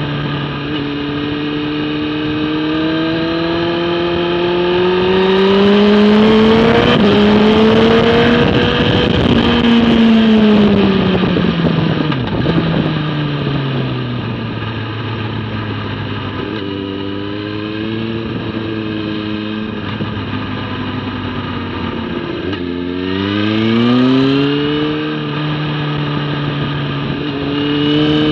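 Motorcycle engine heard from on board while riding hard: its pitch climbs under acceleration for the first several seconds, with wind rush over the microphone at speed, then falls as the bike slows about twelve seconds in. It holds low and steady for a while, then climbs again about twenty-three seconds in.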